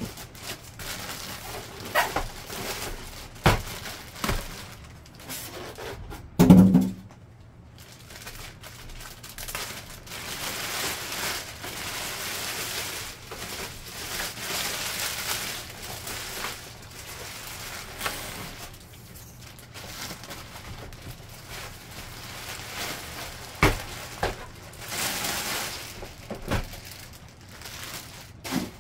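Plastic packaging on a new laser printer rustling and crinkling as it is pulled off, with a few knocks and thuds of handling. The loudest thud comes about six and a half seconds in.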